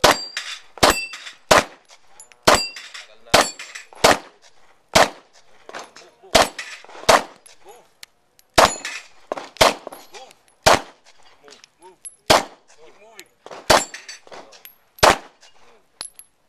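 9mm Glock pistol fired in a steady string of about sixteen shots, roughly one a second with a couple of short pauses, and steel plate targets ringing with a high clang after hits.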